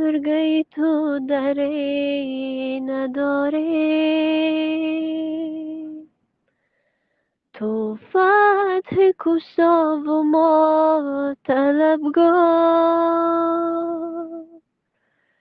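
A woman singing unaccompanied: a devotional munojot (supplication) in Persian/Tajik, in two long phrases of slow, ornamented held notes. The phrases are separated by a silence of about a second and a half, and the second ends a little before the close.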